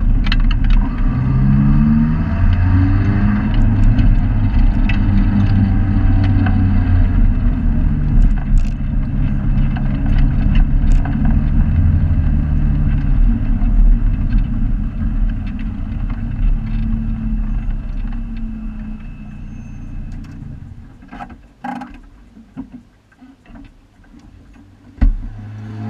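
Neon race car's four-cylinder engine heard from inside the cabin, its revs rising within the first few seconds and then running steadily at speed before easing off. About twenty seconds in it goes much quieter, leaving a few scattered knocks and clicks.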